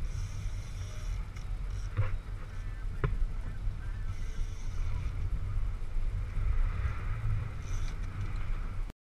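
Wind buffeting the camera microphone on a boat running through choppy sea, with water noise, and two sharp knocks about two and three seconds in. The sound cuts off abruptly just before the end.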